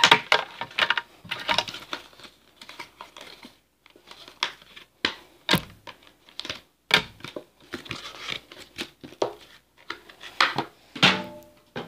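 Stiff clear plastic blister packaging crinkling and clicking in the hands as its contents are pulled out, in irregular crackles and rustles.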